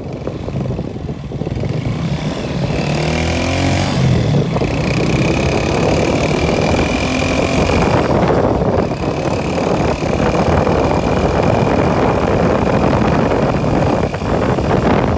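Motorcycle engine revving up about three seconds in, then running steadily at speed with a steady rush of noise and a faint high whine.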